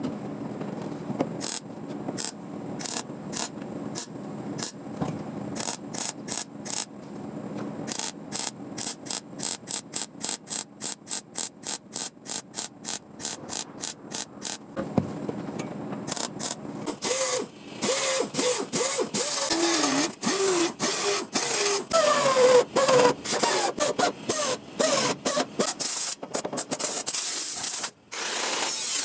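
A hand tool being worked in quick, repeated strokes, probably on the car's sheet metal. The strokes speed up to about four a second, and from about halfway they turn denser, with a squealing, wavering tone over them.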